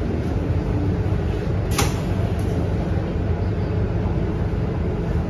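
Interior sound of a Scania K230UB single-deck bus under way at low speed, its five-cylinder diesel engine running with a steady low hum under road and rain noise. A single sharp click about two seconds in.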